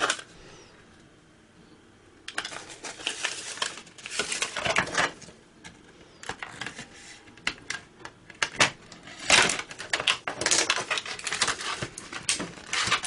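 Thin plastic casing of an HP CM03XL laptop battery pack being pried open along its glued seam. About two seconds in, a run of irregular clicks, scrapes and small cracks begins.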